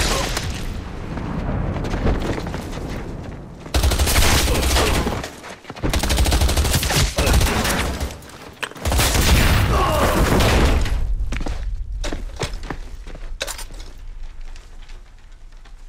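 Battle sound effects of sustained automatic gunfire in long, heavy volleys with a deep rumble underneath, thinning to scattered shots near the end.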